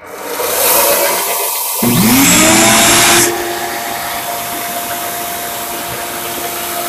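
A shop vacuum starts with a rising rush of air. About two seconds in, the Grizzly 1x30 belt sander's motor spins up with a rising whine and settles into a steady hum as it runs unloaded, with no blade yet on the belt.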